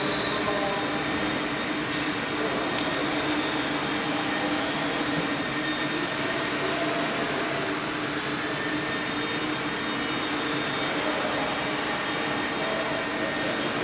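Steady machine hum and whir from an automatic welding station and its welding power source, even in level throughout.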